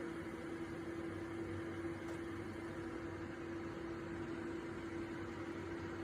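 Ceramic space heater's fan running steadily: an even rush of air with a constant motor hum.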